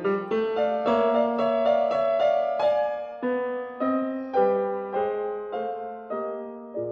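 Background piano music: a slow melody of single notes, each ringing and fading, growing quieter toward the end.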